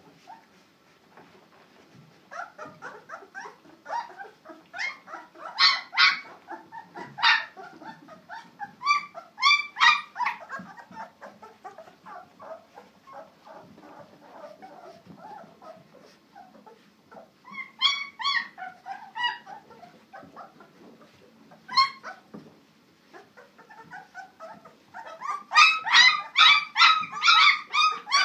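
A litter of 17-day-old puppies whimpering and squealing in many short, high-pitched calls, coming in scattered clusters and growing dense and loudest over the last few seconds.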